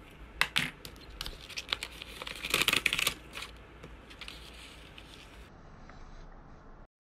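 A lined page being torn out of a spiral-bound notebook along its wire binding: a run of sharp crackling rips and paper crinkles, loudest about two to three seconds in, then dying away to faint paper handling.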